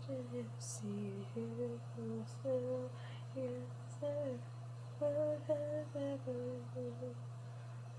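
A young woman humming a song's tune to herself in short stepping notes, about three a second, stopping shortly before the end. A steady low hum sits underneath throughout.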